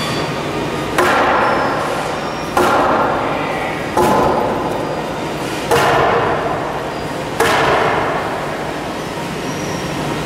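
A wooden plank swung hard against the 13.5 mm safety-glass front of an outdoor LCD sign: five heavy whacks about a second and a half apart, each ringing briefly. The glass holds and does not break. The last whack comes a little over two thirds of the way in.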